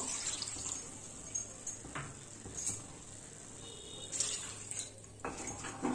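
Water poured from a small bowl into a kadai of fried masala, potatoes and periwinkles, with faint splashing and a few light clinks of the bowl against the pan; a second bowlful goes in, louder, near the end. This is the water added to make the gravy.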